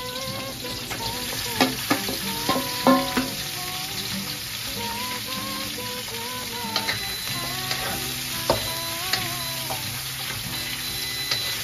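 Mixed vegetables sizzling as they are stir-fried in a wok, with a wooden spatula stirring and a few sharp clacks against the pan.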